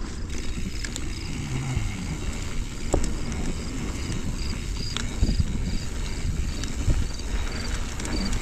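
Mountain bike rolling down a rough trail: a steady rumble of tyres, rattle and wind on the microphone, with a few sharp knocks from the bumps and a light, evenly spaced ticking.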